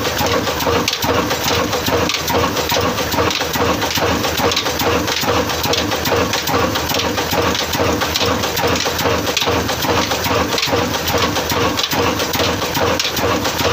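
Old Ruston Hornsby stationary diesel engine with a heavy flywheel, running steadily at a constant speed.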